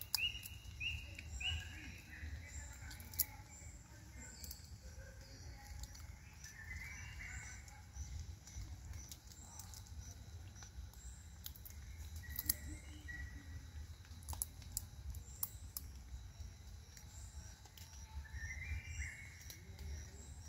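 Birds chirping in short repeated notes, thickest at the start and again near the end, with scattered sharp clicks and a steady low rumble underneath.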